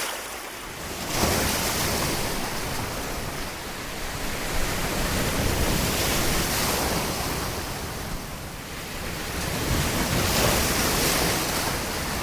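Sea waves surging and washing in, swelling and easing every few seconds, with wind rumbling on the microphone.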